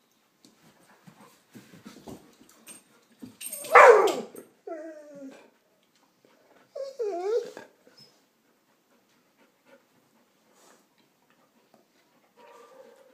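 Two yearling dogs, a Labrador and an Australian Shepherd, vocalizing as they play-fight. There is a loud bark-like yelp about four seconds in, then a falling whine, and a wavering whine with yips around seven seconds, with faint scattered clicks in between.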